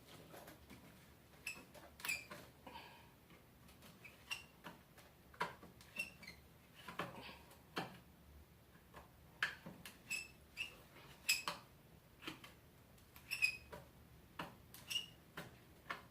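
Flathead screwdriver working at stubborn screws in sheet metal: irregular clicks, scrapes and short metallic squeaks as the blade slips in the screw heads.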